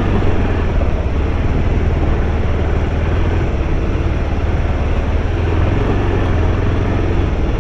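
Sport motorcycle's engine running steadily as it rides along a muddy, rutted dirt road: a continuous low rumble with a noisy haze over it.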